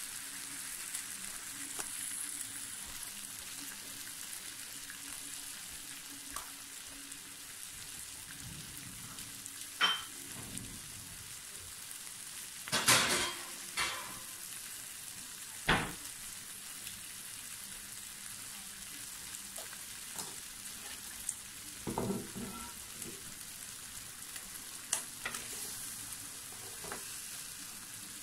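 Teriyaki-glazed pork ribs sizzling steadily on an electric grill plate, with a handful of sharp pops here and there.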